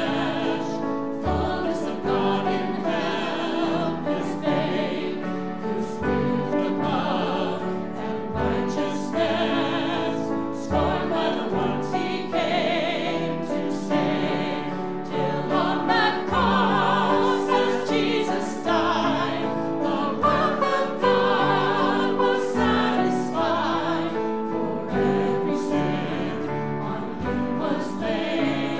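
Church worship team singing a song live, several voices over a band with a steady beat of low drum hits.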